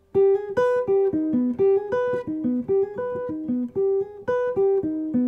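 Electric archtop guitar playing a fast triplet line built on augmented triads: a short falling figure of picked notes, about five a second, repeated over and over with down strokes, hammer-ons and upward sweeps. It ends on a held lower note near the end.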